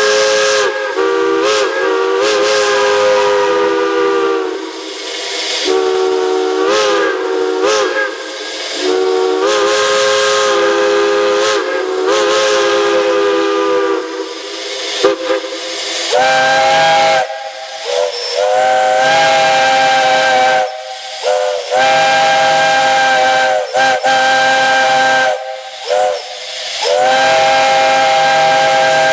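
Chime steam whistles blown in a series of long and short blasts, each a chord of several tones over a steam hiss, some blasts bending in pitch. About halfway through, a different whistle with a higher chord takes over.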